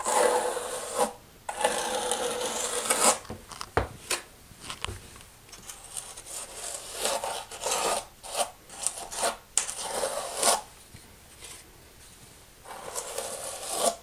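Scraping and rubbing of tile-setting work: ceramic tile pieces worked against thinset mortar and each other. A run of rasping strokes in the first few seconds, then short scrapes and light clicks, going quiet for a couple of seconds near the end.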